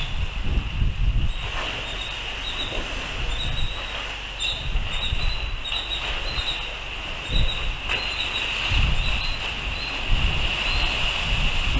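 Wind buffeting the microphone in uneven gusts, under a steady high-pitched squeal with short squeaks recurring over it.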